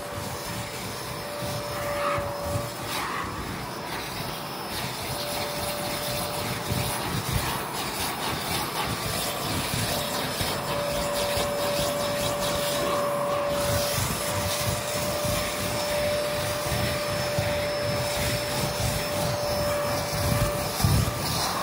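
Kärcher carpet-cleaning vacuum motor running steadily, with a whine that drops out and comes back several times.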